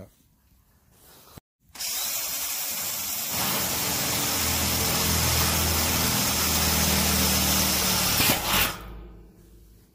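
Cordless drill running steadily, its twist bit cutting into the steel top of a metal barrel. It starts about two seconds in and winds down near the end.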